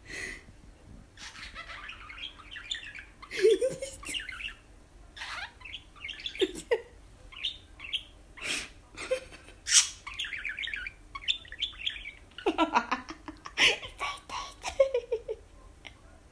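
Budgerigar chattering and warbling in quick, varied bursts, mixed with sharp chirps.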